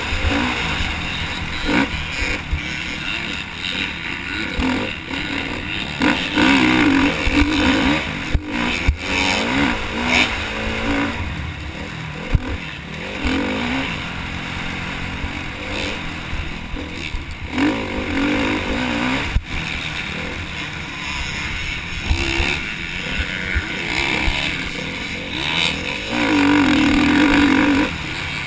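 KTM motocross bike's engine revving hard and easing off again and again as it is raced round a dirt track, with wind rushing over the helmet-mounted microphone and a few sharp knocks from the bumps.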